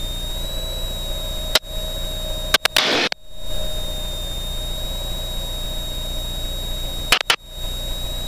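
Aircraft intercom audio from an aerobatic plane in flight: a steady electronic hum with a thin high whine. It is broken by sharp clicks about a second and a half in, a short burst of static near three seconds, and another pair of clicks near seven seconds, like the intercom keying on and off.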